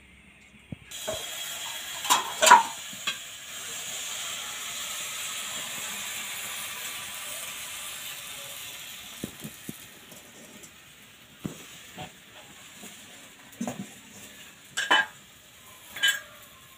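Thin rice and urad-dal batter sizzling as it is spread in a hot, lightly oiled aluminium kadai. The hiss starts about a second in and dies down as the batter sets. A few sharp clinks of utensils against the pan come through, the loudest about two and a half seconds in and two more near the end.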